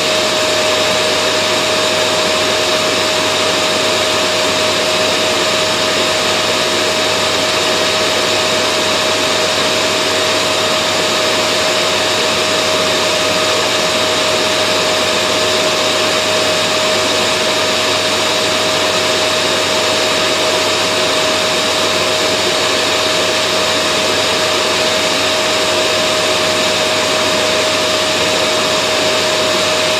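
Vacuum cleaner running steadily: an unbroken rushing noise with a constant whine running through it.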